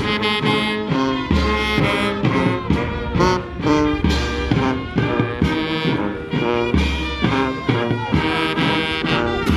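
Military brass band playing a slow piece, with brass melody over regular low beats.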